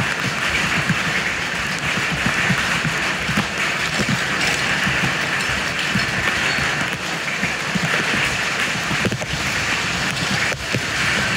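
Steady rain falling on wet concrete pavement and puddles, with small splashes and knocks from hands digging leaves and trash out of a clogged street drain.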